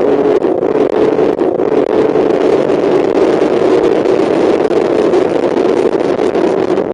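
Mazda MX-5 race car's four-cylinder engine running hard at race pace, heard from inside the car, its pitch holding fairly steady.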